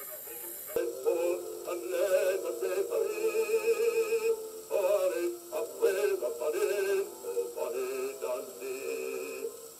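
A 78 rpm shellac record of a singer with accompaniment, played acoustically on an HMV 162 gramophone through a 3D-printed soundbox. The sound is thin and mid-range. The music cuts in a little under a second in.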